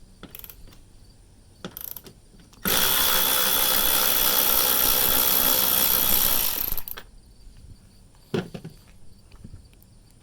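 Power drill-driver running steadily for about four seconds, backing out the 10 mm bolt that holds the headlight assembly. A few short knocks of handling come before and after it.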